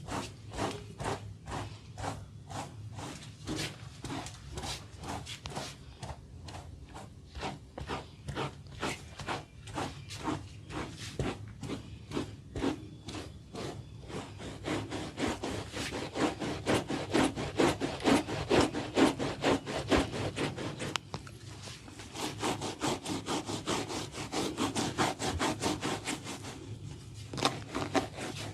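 Hands rubbing and scratching an oiled scalp in quick rhythmic strokes, about two or three a second, turning faster and louder about halfway through, with a short pause near the end.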